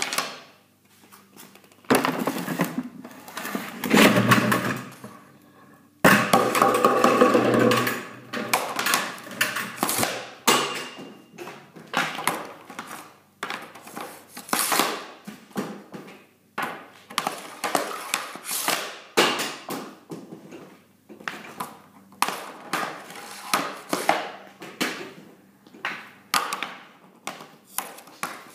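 Hockey snap shots off a plastic shooting board with an Easton Synergy EQ50 stick: the blade slaps the board and cracks against the puck again and again, a sharp clack about once a second. Louder, longer clatters come around two and six seconds in.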